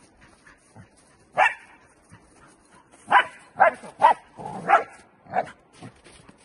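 Young Dutch Shepherd barking in short, sharp barks: one, then after a pause a quick run of about six, roughly half a second apart. These are drive barks from a dog held in an aggressive state while heeling in protection training.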